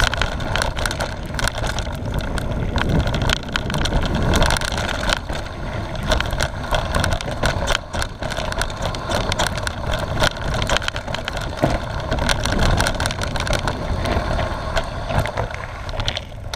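Mountain bike ridden fast down a rough dirt forest trail: a continuous low rushing rumble with tyres on dirt and many short rattles and knocks as the bike clatters over bumps.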